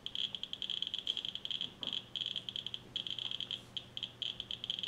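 Geiger counter beeper on an Aware Electronics CD-90 Pro data logger, giving rapid, irregular short high-pitched beeps that sometimes run together. Each beep is one particle detected from a radioactive sample tube placed at about 12 microsieverts per hour.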